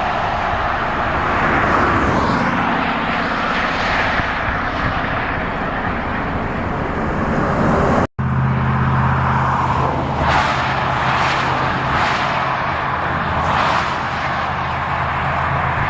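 Vehicle driving along a road: steady road and tyre noise. After a cut about eight seconds in, a low engine hum is stronger, and a few brief swishes come through.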